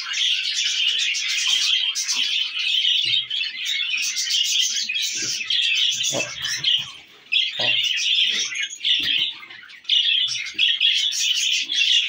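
Cockatiel chirping rapidly and almost without a break, with short pauses about seven and nine and a half seconds in. Faint low knocks underneath.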